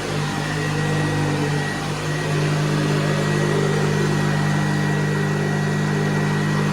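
Hoover Convertible 704 upright vacuum cleaner running steadily: a low motor hum with a thin high whine above it, growing a little louder about two seconds in.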